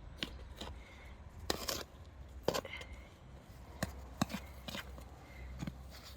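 A series of about ten irregular sharp knocks and taps, some louder than others, over a low steady rumble.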